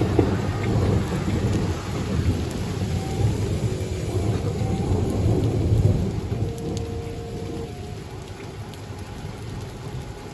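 A loud, uneven low rumble that eases off after about six seconds, with a few faint steady tones after it.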